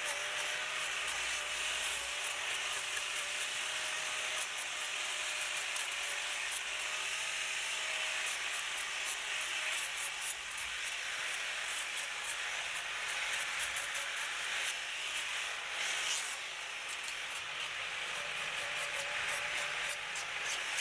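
Handheld corded power tool working over a carved pine Christmas tree sculpture: a steady hiss with fine, rapid ticking, easing briefly about three-quarters of the way through.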